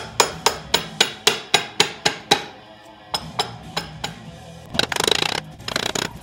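Soft-faced hammer striking the aluminium crankcase of a Honda ATC 200X engine to crack the case halves apart. About ten quick blows come at roughly four a second, then a pause, then scattered and faster rattling taps near the end.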